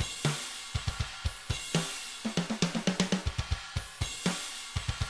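Sampled EZdrummer drum kit playing a fast pattern of kick, snare, hi-hat and cymbals. The snare hits are triggered from two replacement samples pitched apart, so they come through as short hits at different pitches.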